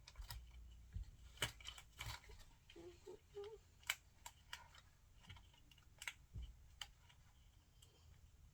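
Faint, irregular clicks and crinkles of small plastic toy packaging being handled and opened.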